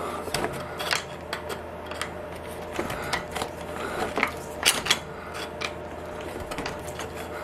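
Irregular light metallic clicks and knocks from hand work on a CNC milling machine's Z-axis slide, over a steady low hum.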